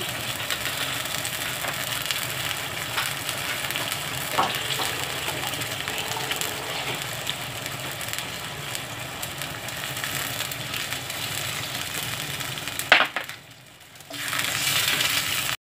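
Chayote slices and sauce sizzling in a nonstick frying pan on the stove: a steady hiss. Near the end comes a single sharp click, after which the sizzle briefly drops away before returning.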